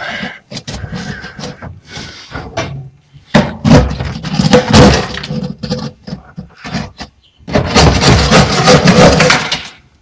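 Thick ice in the freezer compartment of an old Biryusa-3 refrigerator being hacked and scraped off by hand with a tool during a manual defrost, cracking and breaking away in a rapid clatter. The chipping comes in two loud spells, about a third of the way in and again after a brief pause near the end.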